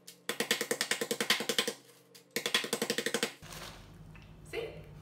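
A wooden rolling pin rapidly pounding a bar of unsweetened baker's chocolate in a zip-top plastic bag on a countertop to crush it into small pieces. The blows come in two quick runs of about ten a second with a short pause between, and stop about three and a half seconds in.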